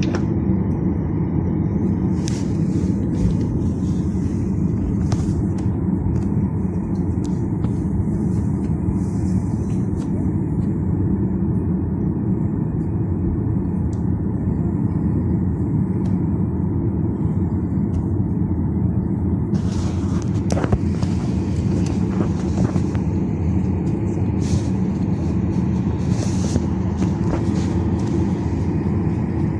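Steady low rumble of an airliner cabin, engines and airflow running evenly, with a few faint knocks and clicks, the clearest about two-thirds of the way through.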